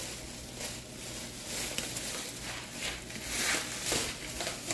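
Plastic shopping bags and packaging rustling and crinkling as they are handled, in uneven surges with no voice.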